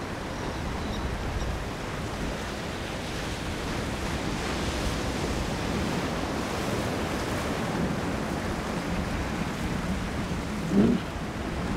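Steady rush of wind and waves on open water, with a brief louder sound about eleven seconds in.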